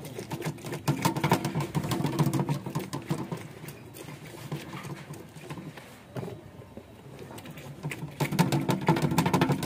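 Lime half being pressed and twisted back and forth on a plastic hand citrus juicer: a fast, rhythmic scraping of fruit on the ridged plastic reamer, in two bouts, about a second in and again near the end.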